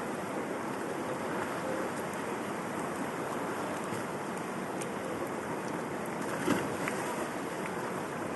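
Steady rush of flowing river water, with a short knock or splash about six and a half seconds in.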